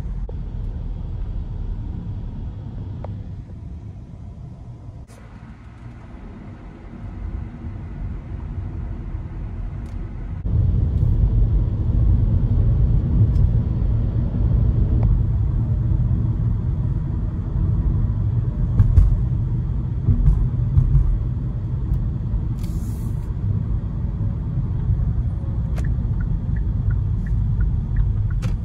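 A car driving, heard from inside: a steady low road and engine rumble. It fades for several seconds, then steps up louder about ten seconds in and stays there.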